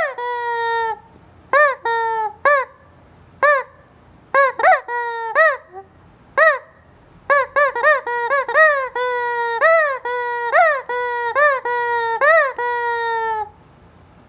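Squeaky rubber chicken toy squeezed over and over, giving a run of honking squawks, some short and rising-then-falling and some held as a long steady tone. They stop about a second before the end.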